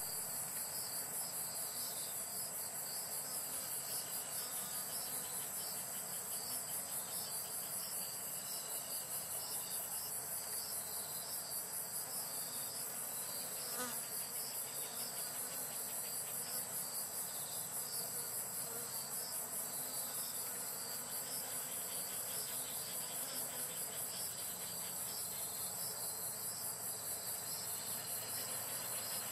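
Chorus of singing insects: a steady, rapid, very high-pitched trill, with fainter repeated chirps a little lower in pitch.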